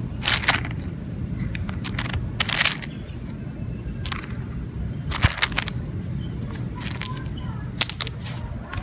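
A hand scraping and stirring loose gravel stones, giving about six short crunching rattles spaced a second or so apart, over a low steady rumble.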